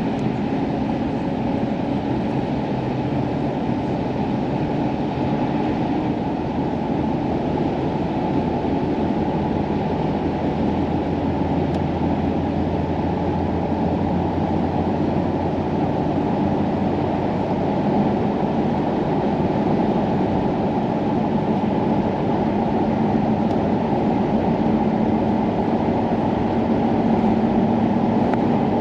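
Pickup truck driving at road speed: a steady low rumble of engine and tyres inside the cab.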